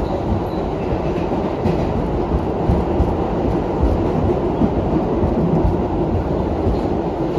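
R62A subway car running at speed, heard from inside the car: a steady low rumble of wheels and motors with irregular clacks from the rails.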